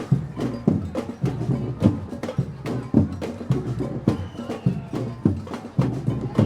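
Street protest drumming: drums beaten in a steady march rhythm, deep hits about twice a second with sharper clicks in between.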